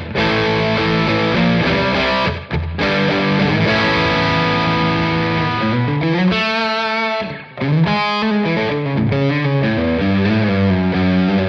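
Electric guitar with Travis Bean-style Mad Love humbuckers, played through a vintage-style amp-sim plugin with a fuzz pedal and an echo/chorus pedal engaged: sustained fuzzy notes and chords, with a note sliding upward about six seconds in.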